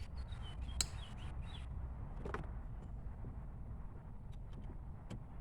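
A few short clicks and taps of small plastic door-panel trim pieces being handled and fitted, over a steady low rumble.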